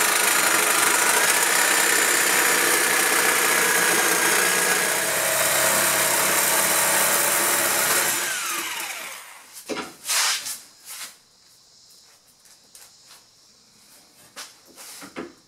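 Corded reciprocating saw cutting through thin steel plate, a steady loud rasp for about eight seconds, then the motor winds down and stops. A sharp knock follows about ten seconds in, then scattered light clanks and knocks of metal being handled.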